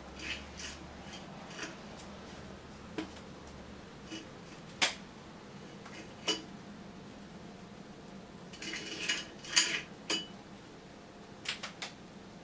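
Irregular sharp electrical snaps and cracks from a plasma display panel driven at high voltage by a microwave-oven transformer with a 4 µF, 2.5 kV capacitor added, single snaps a second or two apart and a quick cluster about nine to ten seconds in. A faint low hum lies under the first few seconds and stops.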